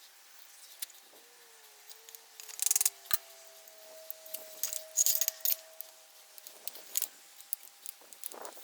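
Small metal clinks and rattles of screws and a screwdriver as a handle is screwed onto a wire brush, with two louder bursts of rattling about two and a half and five seconds in.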